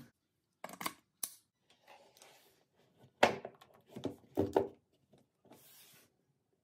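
Handling noise from an Echo Show 5 smart display being moved about on a wooden table: a series of knocks and thunks, the loudest about three seconds in, then a brief rustle.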